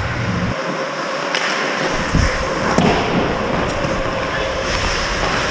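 Ice hockey play around the goal: skate blades scraping the ice, with a few sharp knocks of sticks and puck about a second in and again near the middle.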